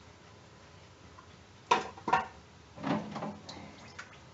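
Oysters knocking and clattering in a metal pot as it is handled. Two sharp clinks come a little under two seconds in, then a brief rattle and a few small clicks.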